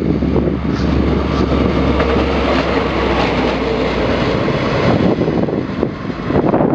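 KiwiRail DL class diesel-electric locomotive, its 20-cylinder MTU diesel running under power, passing close by with engine drone and wheel noise. The deep low hum drops away about four seconds in as the locomotive goes past.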